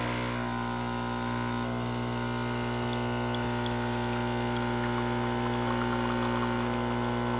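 Gaggia Brera espresso machine's vibration pump humming steadily as it pushes hot water through the ground coffee to brew a shot.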